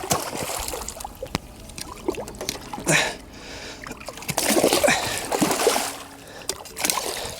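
Water splashing and trickling beside a bowfishing boat, in uneven bursts, with a few sharp knocks in between.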